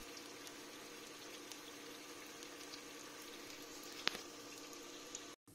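Mysore bhajji batter frying in shallow oil in a pan: a faint, steady sizzle with small crackles and one sharper pop about four seconds in.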